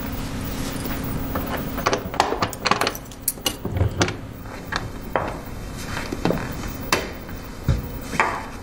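A bunch of keys jangling and clicking in a door lock as the door is unlocked, in a dense run of metallic rattles about two seconds in, then scattered clicks.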